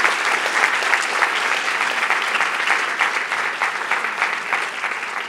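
Audience applauding: many people clapping steadily in a large hall, dying away just after the end.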